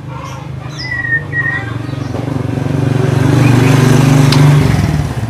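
A motor vehicle engine hums, grows louder to a peak about three to four and a half seconds in, then falls away as it passes. A bird gives a couple of short whistled chirps about a second in.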